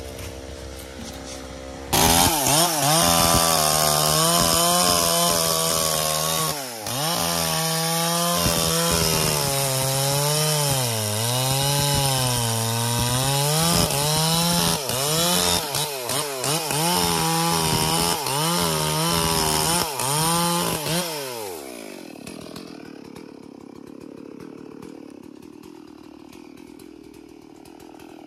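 Stihl MS440 two-stroke chainsaw cutting through a felled ylang log. About two seconds in it goes to full throttle and runs loud under load, its pitch sagging and recovering again and again as the chain bites the wood. Near the end the revs fall away and it runs much quieter.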